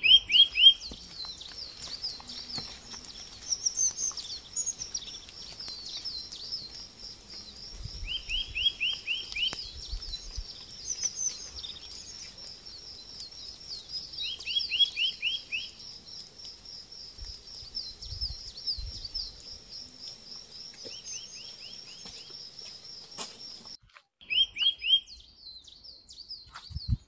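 Birdsong: a continuous high, rapid trill, with a bird repeating a short run of five or six quick descending notes about every six seconds. The trill stops abruptly a few seconds before the end.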